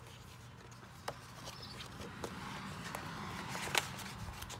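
Paper cards and photos rustling and sliding as they are handled in a planner's pockets, with a few sharp clicks and taps.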